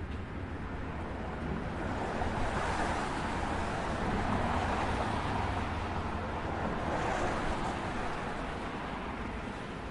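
City street traffic: a steady low rumble with a swell of passing-vehicle noise that rises about two seconds in and fades near the end.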